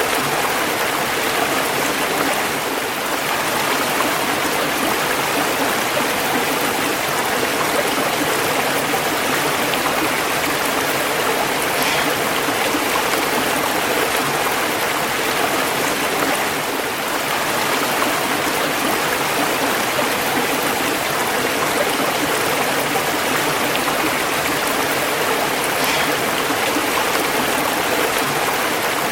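Running water: a stream or small waterfall flowing with a steady rush and gurgle.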